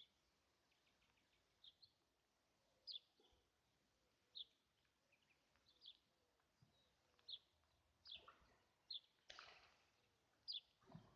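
Faint bird chirps: short high notes, each falling slightly, repeated about every second and a half, over quiet outdoor background. A brief burst of noise comes about nine seconds in.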